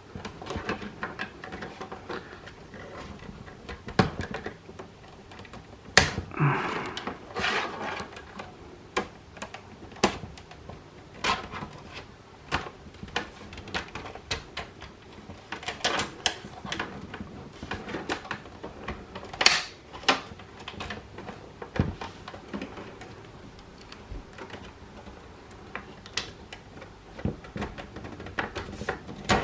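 Irregular plastic clicks, taps and scrapes of a pry tool working around the clips of an Xbox One S plastic back panel to pop it off, with a short scraping stretch and a few sharper snaps.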